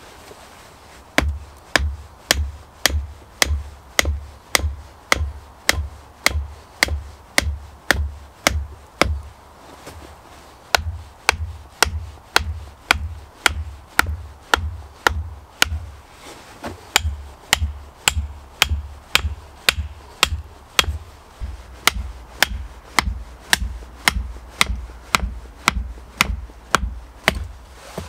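Hatchet striking the tops of wooden stakes, driving them into an earth floor: sharp wooden knocks with a dull thud under each, about two a second, in runs broken by two short pauses.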